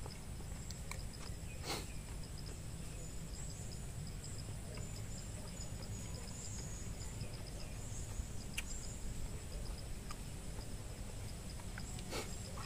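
Insects calling steadily outdoors: a high continuous buzz together with a fast, evenly pulsing chirp, over a constant low rumble. A couple of sharp clicks come through, one near the start and one near the end.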